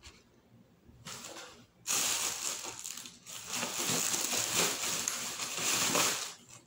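Crunching and crackling of a crisp-skinned fish being broken apart and eaten. It starts about two seconds in, runs steadily, and stops shortly before the end.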